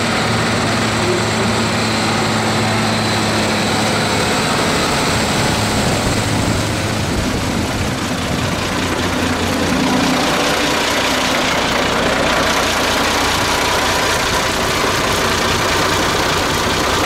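Heavy tractor diesel engines running steadily.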